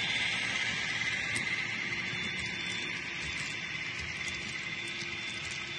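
N-scale model covered hopper cars rolling past on track: a steady high hiss that fades gradually, with light, irregular clicking of the wheels.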